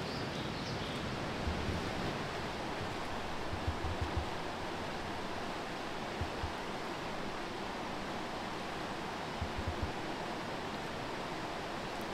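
Steady rush of running water, like a river or creek, with a few soft low thumps in small clusters.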